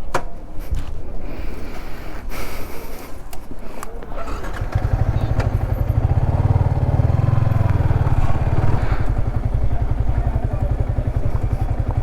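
A few clicks and knocks, then about four and a half seconds in a motorcycle engine comes in loud and runs steadily with a fast, even low pulse.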